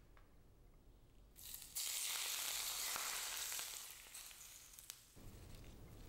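Hot oil poured over scallions on a Chinese-style steamed fish, sizzling. The sizzle starts about a second and a half in, is strongest for about two seconds, then dies away.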